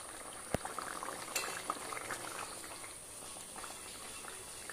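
Chicken curry gravy boiling in a kadai, bubbling steadily with many small pops and a few light clicks.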